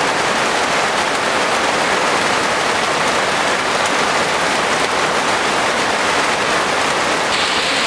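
Heavy rain pouring steadily onto wet ground and puddles, a dense even hiss that turns a little brighter about seven seconds in.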